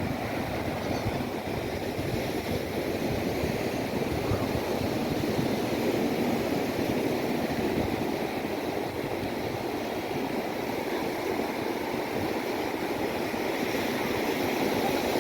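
Sea surf breaking and washing up a sandy beach: a steady rushing that swells gently and eases off.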